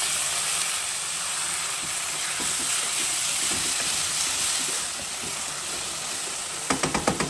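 Curd sizzling as it hits the hot oil and spiced vegetables in a pan, stirred in with a wooden spatula. A quick run of about five knocks comes near the end.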